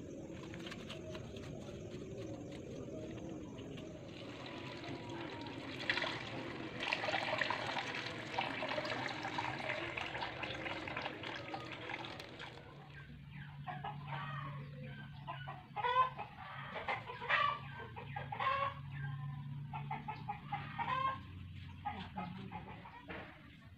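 Water running from a tap into a plastic bottle, then chickens clucking in a string of short calls in the second half.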